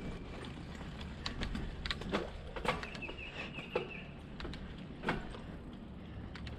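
Mountain bike rolling over dirt and flat rock: tyres on the trail with scattered clicks and knocks from the bike, over a low rumble. A brief run of quick ticks comes about halfway through.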